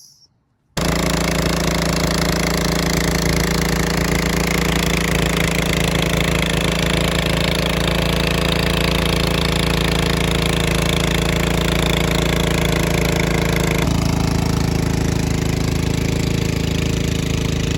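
Holtz HPP154 four-stroke petrol water pump engine running steadily under load while pumping water. It starts suddenly about a second in, and its tone shifts slightly about 14 seconds in.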